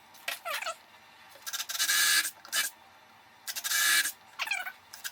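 Hand saw cutting a short piece of wooden dowel rod: rasping back-and-forth strokes, some with a squeak, in a few bunches separated by pauses.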